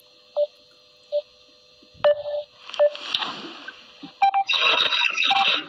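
Short electronic beeps from a call line that has dropped, one about every three-quarters of a second, then a couple of seconds of harsh, garbled noise as the connection breaks up.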